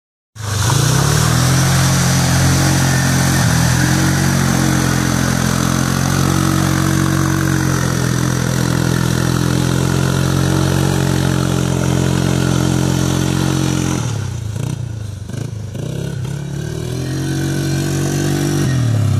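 ATV engine running at steady revs. It falls away for a few seconds about three-quarters of the way through, then picks up again, with its pitch sliding lower just before the end.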